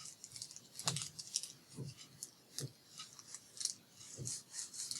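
Paper and card being handled and pressed down by hand: irregular soft clicks, taps and light crinkles, about a dozen in all.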